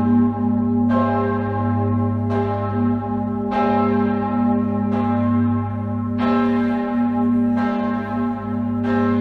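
Full peal of six swinging church bells (tuned G♯, B, D♯, F♯, G♯, E, cast between 1781 and 1972) ringing together. Strikes overlap at uneven intervals over the deep, steady hum of the great bell.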